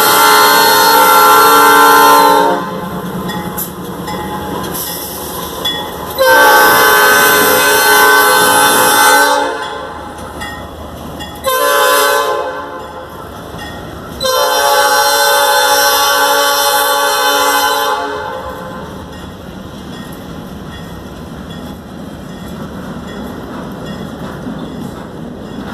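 Norfolk Southern diesel locomotive's air horn sounding the grade-crossing signal: long, long, short, long blasts, the first already going at the start. After the last blast, the freight cars roll past with a steady rumble and wheel clatter.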